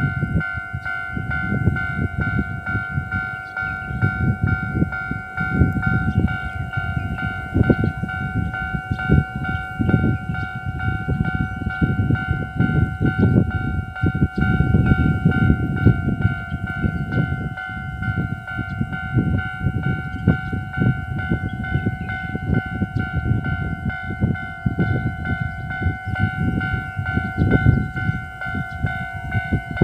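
Level crossing warning bell ringing continuously, a steady multi-tone electronic ring, over a heavy, uneven low rumble.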